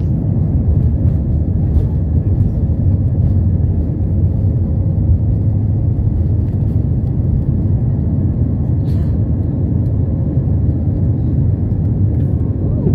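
Airbus A320's jet engines at takeoff thrust heard from the cabin over the wing: a loud, steady rumble through the takeoff roll and lift-off.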